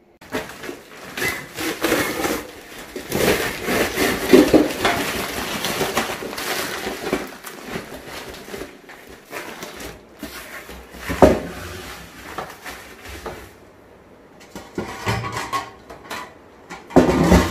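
Stainless steel pots and containers clinking and knocking as they are handled and moved out of a kitchen cupboard, with one loud knock about eleven seconds in.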